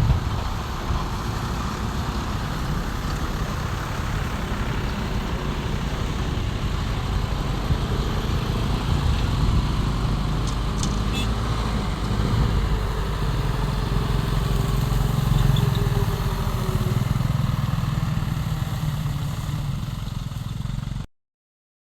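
Heavy diesel machinery (excavator and dump trucks) running steadily with a low rumble, with a few sharp clicks about ten and a half seconds in. The sound cuts off abruptly about a second before the end.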